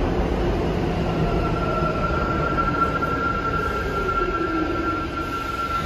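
New York City Subway train running through the station with a steady rumble, a whine falling in pitch over several seconds, and a steady high-pitched squeal starting about a second in.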